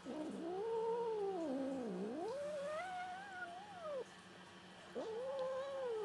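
Domestic cat making long, angry calls at being petted while she eats. The first runs about four seconds, dipping low in pitch in the middle and rising again. A second, shorter call comes about a second later.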